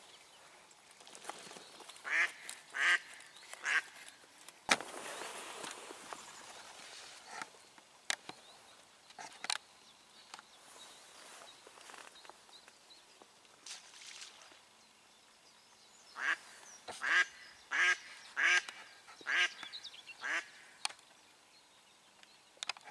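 Hen mallard, a live decoy duck, quacking: three quacks early on, then a run of about seven loud quacks in a row near the end, calling to the drakes. A sharp click about five seconds in is followed by a couple of seconds of soft rustling.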